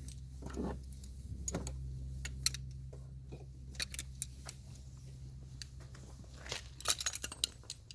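Scattered light clicks and clinks, with a quick run of them near the end, as the newly fitted short ram intake and tools are handled in the engine bay. A steady low hum runs underneath.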